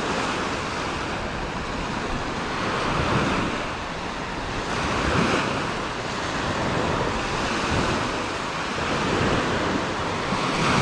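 Small surf breaking and washing up a sandy beach, with wind buffeting the microphone. The wash swells and eases a few times.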